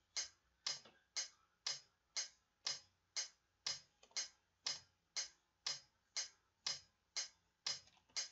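Metronome clicking steadily at about two clicks a second, keeping the beat for playing along.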